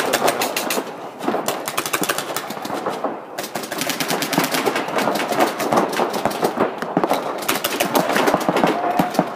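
Paintball markers firing reball rounds in rapid strings of sharp pops, several shots a second, with brief pauses about one and three seconds in.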